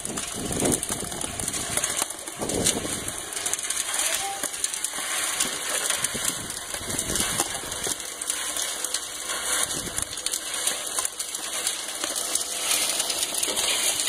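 Motor-driven rotary drum sand sieving machine running: a steady hiss and rattle of sand and pebbles tumbling through the turning wire-mesh drum.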